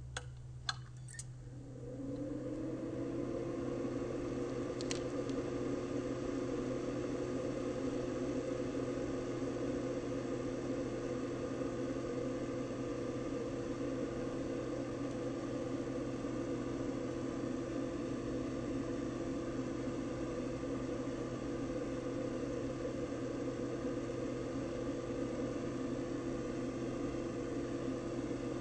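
A couple of clicks, then the xenon lamp's cooling fan starts about two seconds in. Its hum rises briefly in pitch and then runs steadily.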